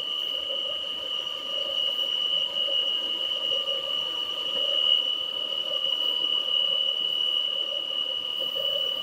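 Peugeot 408 engine running with a steady, high-pitched whine, a noise that resembles a worn pulley bearing but which the mechanic traces to the valve cover.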